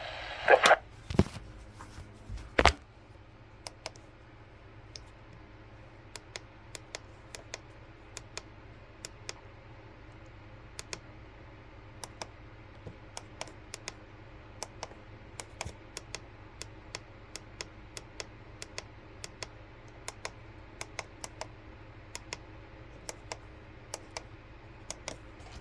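Three louder knocks in the first few seconds, then faint, irregular clicks, about one or two a second, like keystrokes on a computer keyboard.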